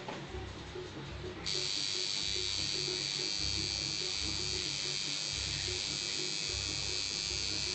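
Electric tattoo machine buzzing against skin, a steady high-pitched whine that comes on louder about a second and a half in and then runs without a break.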